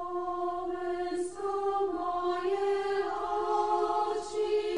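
Choral intro music: voices holding long notes, moving to a new pitch every second or so.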